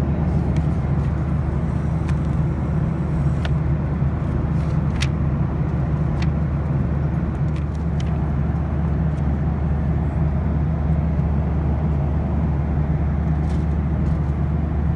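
Steady cabin noise of a Boeing 737-800 in flight: a low, even rumble and hum of engines and airflow. A few faint ticks sit on top of it as the in-flight magazine's pages are handled.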